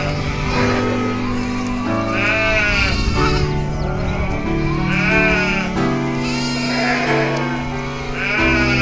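Goat kids bleating, about four separate calls a second or two apart, one of them higher-pitched, over background music with steady held chords.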